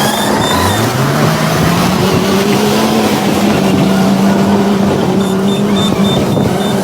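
Bulldozer's diesel engine revving up about half a second in, then held at high revs, with heavy mechanical noise.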